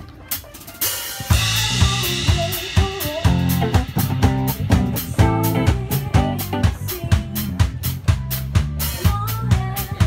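Band sound check: a drum kit and an electric bass guitar playing a steady groove together, with a cymbal crash about a second in.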